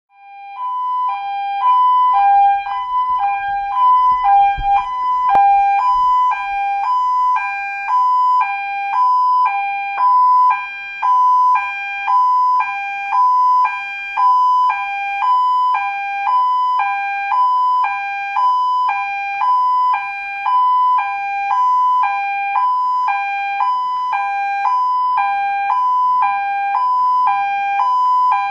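Two-tone emergency vehicle siren alternating steadily between a high and a low note, about two notes a second.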